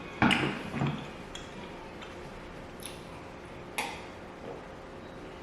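Someone eating salmon and rice close to the microphone: a loud burst of mouth noise near the start, then two sharp clicks about three and four seconds in.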